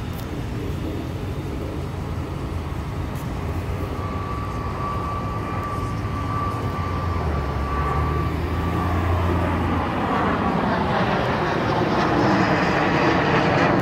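Business jet flying low overhead, its jet engine noise building steadily louder as it approaches, with a high steady whine for a few seconds midway and a sweeping, phasing rush as it comes overhead near the end.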